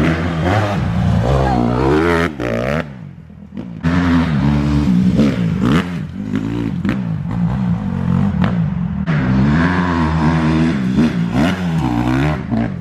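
Honda CRF150 dirt bike's four-stroke engine revving up and down over and over as it is ridden across bumpy ground, easing off briefly about three seconds in.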